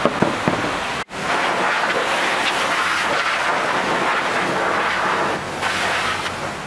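Pressure-washer jet spraying water onto a car, a steady loud hiss with a brief break about a second in.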